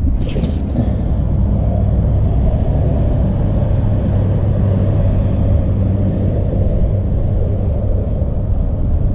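Wind blowing across the camera microphone, a steady low rumble.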